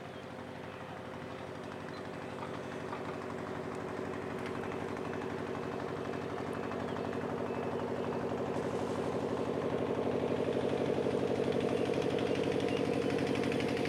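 An engine running steadily with a fast, even chugging pulse, growing gradually louder.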